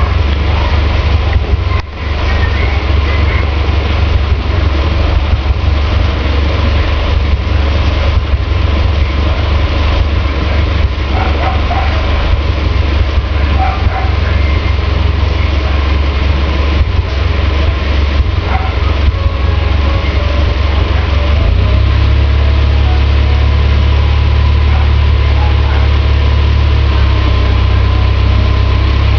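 Car engine idling with a steady low rumble that deepens slightly about two-thirds of the way through.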